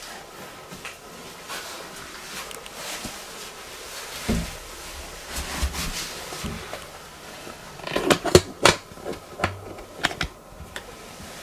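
Scattered knocks and clicks from someone moving about and handling things in a small room. A dull thump comes about four seconds in, and a quick run of sharp clicks and knocks about eight seconds in is the loudest part.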